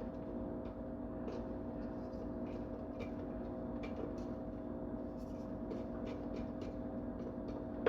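A steady low hum with faint, scattered light clicks over it.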